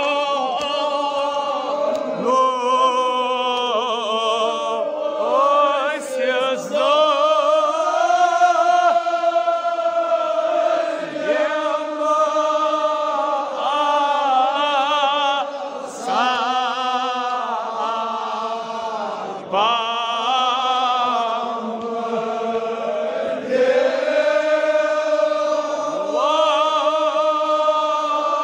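Men's voices chanting a Kashmiri marsiya, a Shia elegy, in long, wavering held notes.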